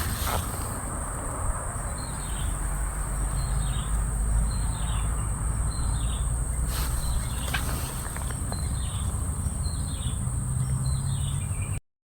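Insects droning in a steady high-pitched chorus, with a short falling chirp repeating about once a second, over a low rumble. The sound cuts off abruptly near the end.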